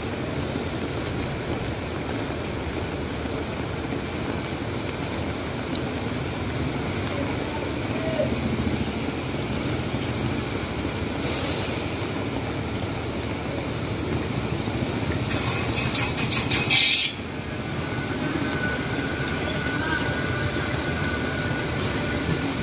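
Steady rain falling on a wet, flooded city street with traffic running through it. About three quarters of the way in, a loud hiss builds for a second or two and cuts off suddenly.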